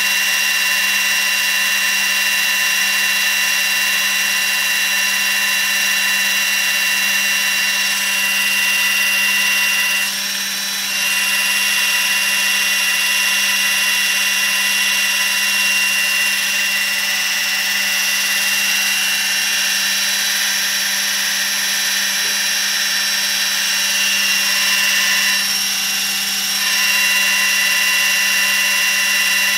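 Electric RC helicopter spooled up, its motor and drive gears making a steady whine of several high tones as the rotor head spins. The whine dips briefly about ten seconds in and again near the end.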